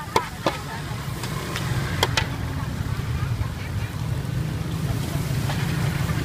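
Metal spatula scraping and clacking against a wide steel wok a few times, mostly in the first two seconds, while stir-frying noodles and bean sprouts. Under it runs a steady low rumble.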